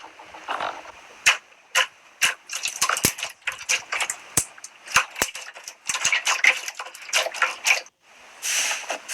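Slime being squeezed and pressed by hand, giving a run of quick sticky pops and crackling squelches. There is a brief gap near the end, then a denser stretch of crackling.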